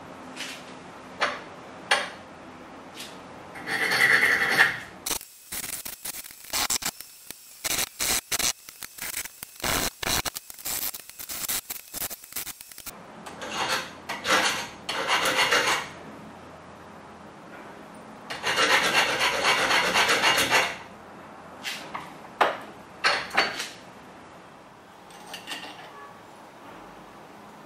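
Hand file rasping across a small workpiece in bursts of strokes: a fast run of short strokes, then a longer continuous stretch, with a few sharp clicks in between.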